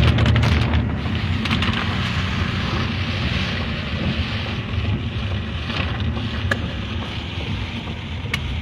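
A car driving slowly through floodwater on a street, its tyres churning and splashing the water in a steady rush, with the engine running low underneath.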